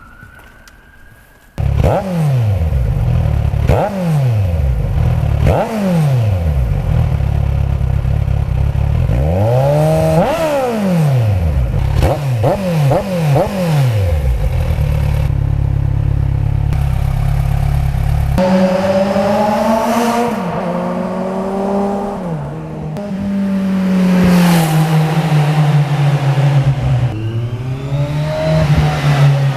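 Kawasaki Z1000 inline-four motorcycle engine, coming in suddenly a second and a half in, then blipped into several quick sharp revs that drop straight back to idle. In the second half the engine speed rises and falls more slowly and smoothly.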